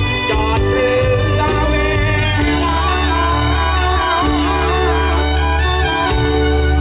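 Live band playing a Thai luk thung song through the stage sound system: a steady bass and drum groove under sustained melody lines, one of which wavers up and down in pitch midway through.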